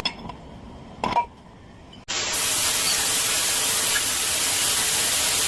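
A brief light clink about a second in, then a loud, steady spraying hiss that starts abruptly about two seconds in and holds on evenly.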